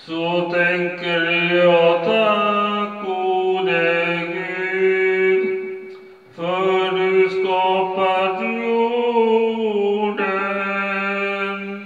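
A man singing a slow, self-written Swedish praise song in long held phrases, with a short break for breath about six seconds in.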